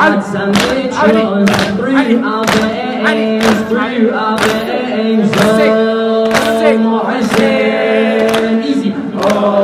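A male reciter chanting a latmiyah (Shia lamentation) in long held notes, with a crowd of mourners' voices joining in and rhythmic chest-beating, about one beat a second.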